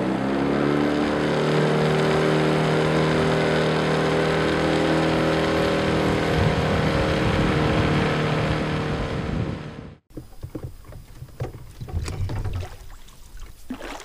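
A john boat's outboard motor running under way, rising in pitch over the first second and then holding a steady drone. It cuts off abruptly about ten seconds in, leaving quieter water splashes and light knocks.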